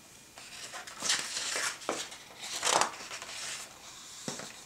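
Page of a large hardcover picture book being turned: two papery swishes, with a couple of light taps as a hand presses the new spread flat.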